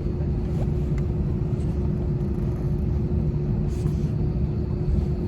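Steady low rumble of a moving vehicle, with a constant hum over it and no change in speed.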